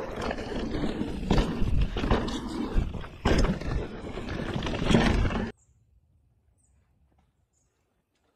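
Mountain bike riding fast over a dirt forest trail: a steady rumble of wind and tyre noise with knocks and rattles as the bike hits bumps. It cuts off suddenly about five and a half seconds in to near silence.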